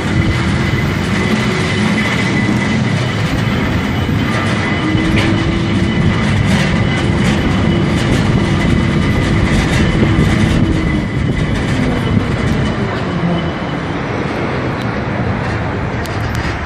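Lisbon Tram 28 streetcar running along its rails, heard from aboard: a steady rumble and rattle of the car with scattered clicks, a low motor whine that rises and falls slightly with speed, and a thin steady high tone.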